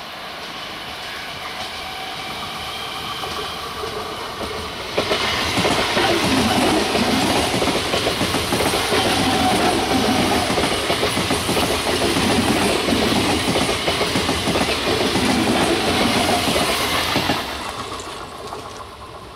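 ICF-built electric multiple unit (EMU) local train approaching with a rising hum, then passing close by from about five seconds in with a loud, steady rush and clatter of its wheels on the rails. The sound falls away near the end as it goes by.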